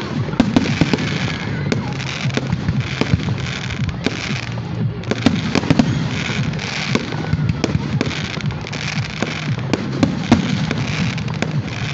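Aerial fireworks shells bursting overhead in quick succession: a steady run of sharp bangs with crackling between them.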